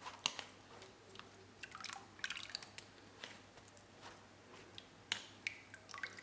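Hands squeezing syrup-soaked lemon peels: faint wet squelches and drips, with scattered small clicks and a cluster of crackly squishes about two seconds in.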